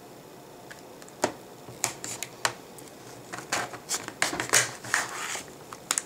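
Clear plastic clamshell packaging of RAM modules being cut and pried open by hand: irregular sharp plastic clicks and crackles, a few at first and coming thick and fast in the second half.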